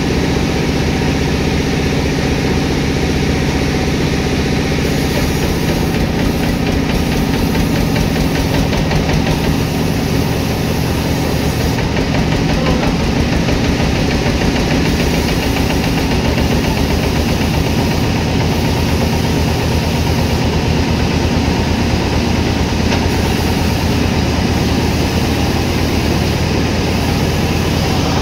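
Sawmill machinery's engine running steadily with a constant low hum and vibration.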